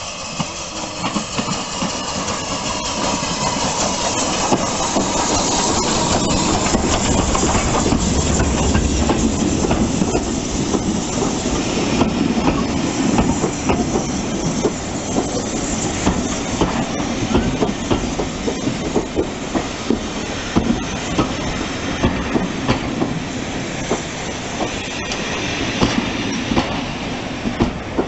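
BR Standard Class 2MT steam locomotive 78019 and its train coming in and passing close by. The sound grows louder over the first few seconds as the engine nears, then the coaches roll past with a run of sharp clicks as their wheels cross the rail joints.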